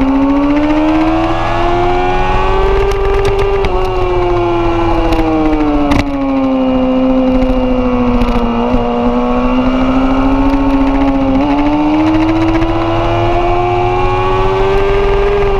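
Honda CBR1000RR Fireblade's inline-four engine at high revs on track, its pitch slowly climbing, easing down, then climbing again as the bike accelerates and eases off. A quick upshift drops the pitch right at the start, and a short sharp click comes about six seconds in.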